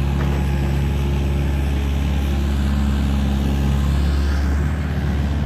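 A machine running with a steady, unbroken low hum.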